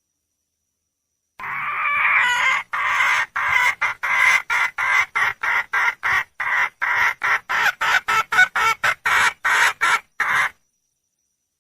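Wild junglefowl hen calling for a mate: one drawn-out note, then a rapid run of about twenty short clucking notes, roughly three a second, that cuts off abruptly near the end.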